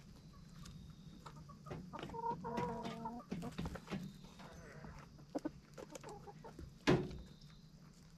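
Chickens clucking, with one longer call about two seconds in, scattered light ticks, and a single sharp knock near the end.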